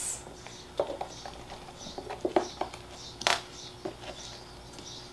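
Hands pressing and patting damp soil substrate into a clear plastic enclosure: scattered soft taps, crumbles and light knocks, with one sharper knock a little past the middle.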